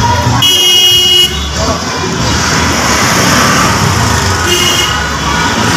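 Vehicle horn honking twice, a high blast lasting most of a second about half a second in and a shorter one near the end, over the steady noise of road traffic.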